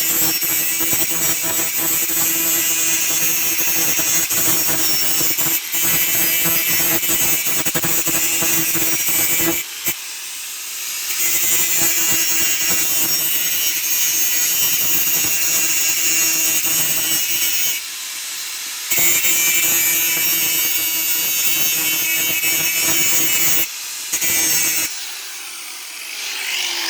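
A power tool cutting metal pipe: a steady motor whine under a loud high hiss. It eases off briefly three times, about ten, eighteen and twenty-four seconds in.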